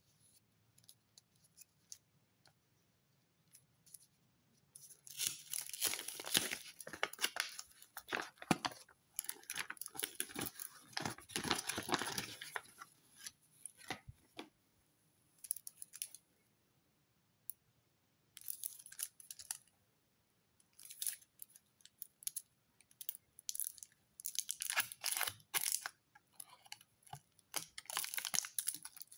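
A cardboard chocolate-bar box being torn open and the bar's aluminium foil wrapping crinkling as it is handled, in irregular bursts of crackling after a few near-quiet seconds with light clicks.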